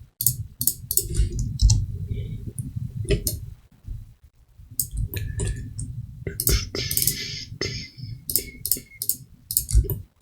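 Computer mouse clicking in quick, irregular runs, the sound of a user working through selections in 3D modelling software.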